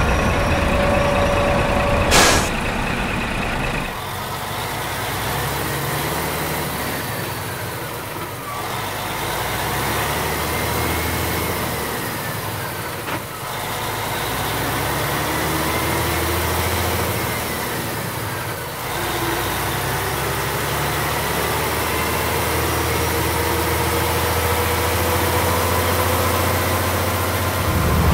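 A heavy vehicle's engine runs steadily, its pitch swelling up and falling back every four to five seconds. A short sharp click comes about two seconds in.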